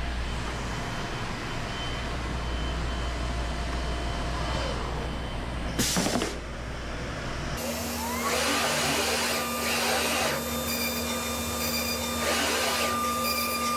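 A CNC router's vacuum hold-down pump running steadily, with a short hiss of compressed air about six seconds in. From about eight seconds the router spindle takes over: a rising whine as it spins up, steady running with a few bursts as it drills the index-pin holes, and a falling whine near the end as it spins down.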